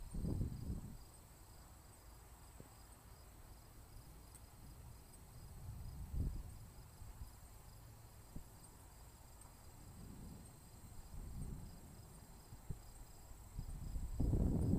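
Crickets chirping steadily in a fast, even pulse, with low rumbles that swell and fade several times and grow louder near the end.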